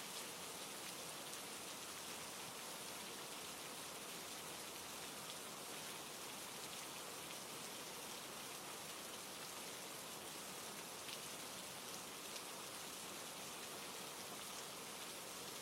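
Steady rain falling, a constant even hiss with faint scattered drop ticks.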